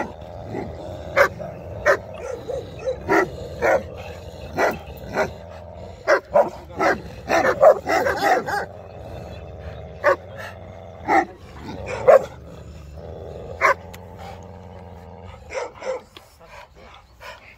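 Large dogs barking: short, sharp barks at irregular intervals, busiest around the middle, between dogs on leads facing each other.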